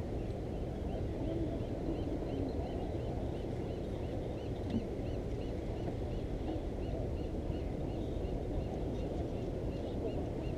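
Steady low outdoor noise of wind and sea at the pier, with a faint high chirp repeating evenly about three times a second through most of it.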